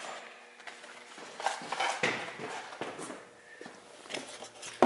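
Light handling noise as boxes and parts are moved about on workshop shelves: scattered small knocks and rustles over a faint steady hum.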